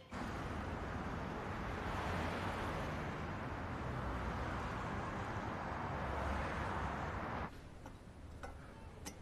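Steady urban night ambience, a hum of distant city traffic, that cuts off suddenly about seven and a half seconds in. Quiet room tone with a couple of faint clicks follows.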